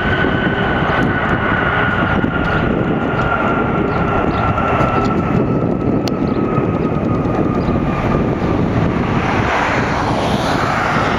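Airbus A318 jet airliner's turbofan engines on the landing rollout: a steady roar with a whine that slowly falls in pitch as the engines spool down.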